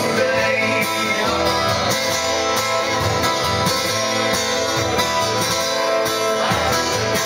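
Two acoustic guitars strummed together in a steady rhythm, an instrumental passage.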